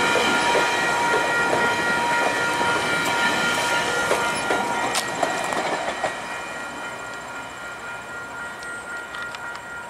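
Bilevel GO train coaches rolling over a level crossing, their wheels clicking sharply over the rail joints, with the noise fading after about six seconds as the train moves away. A level-crossing bell rings steadily throughout.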